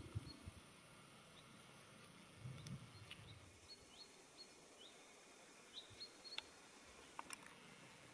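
Near silence with faint, short, high bird chirps, several in a row through the middle, and a soft low sound about two and a half seconds in.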